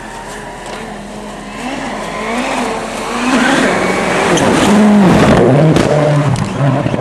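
Rally car's engine approaching, its revs rising and falling with the throttle, growing louder from about three seconds in, then passing close at full noise with a drop in pitch as it goes by.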